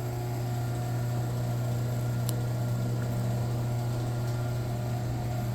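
Chamberlain chain-drive garage door opener running with no door attached, its motor giving a steady low hum as it drives the chain.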